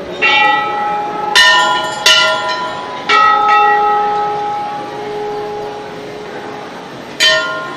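Hindu temple bells rung by hand at a shrine entrance. There are several strikes at uneven intervals in the first few seconds, each ringing on and fading, with differing pitches. After a pause of a few seconds comes one more strike near the end.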